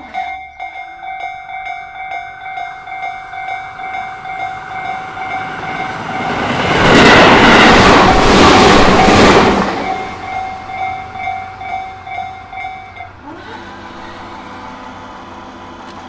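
Japanese level-crossing warning bell ringing in a steady repeating ding. A Tobu Isezaki Line electric train rushes through from about six to ten seconds in, and its wheel and motor noise is the loudest part. The bell stops about thirteen seconds in, and the barrier motors then hum steadily as the gates rise.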